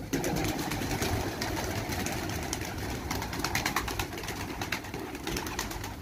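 A flock of domestic pigeons astir: many small clicks and wing flutters over a steady rustle.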